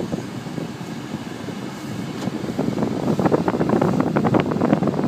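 Inside the cabin of a 2004 Volkswagen Passat TDI moving slowly, its four-cylinder turbodiesel running under the steady blow of the air-conditioning fan, growing louder about two seconds in as the car picks up a little speed.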